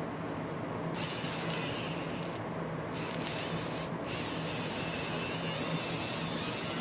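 Freshly rebuilt five-pole model-locomotive motor with new rare-earth magnets, spinning fast on test leads: a high whine with brush hiss. It runs in two short bursts of about a second each, then runs steadily from about four seconds in while the new brushes break in.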